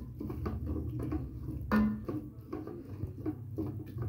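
Wooden spatula stirring chopped onions, mint and coriander sautéing in oil in an electric cooker's pot, making repeated short scrapes and taps against the pot, about three or four a second, over a steady low hum. A brief pitched sound comes just under two seconds in.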